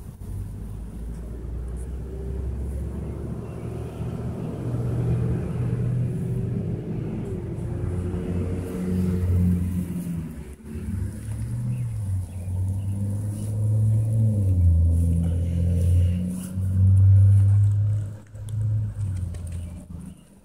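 Low rumble of a motor vehicle engine, its pitch shifting up and down several times and loudest near the end.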